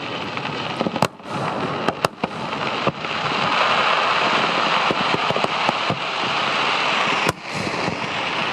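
Fireworks going off: a dense, continuous crackle, with sharp bangs of bursting shells about a second, two seconds and three seconds in, and a loud one near the end.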